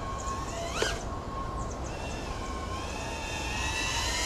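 FPV quadcopter motors whining, the pitch gliding up and down as the throttle changes, with a quick sharp rise and fall about a second in. A low rumble of wind runs underneath.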